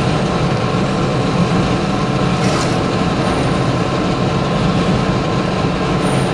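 400-model flat-die wood pellet mill running steadily under load as it is fed sawdust: a loud, continuous mechanical drone with a low hum.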